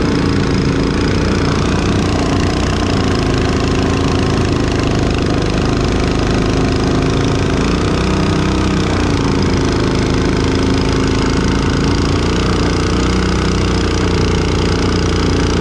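Mud Skipper 7.5-horsepower Hemi surface drive mud motor running steadily under load, pushing a small jon boat along. Its pitch wavers briefly about halfway through.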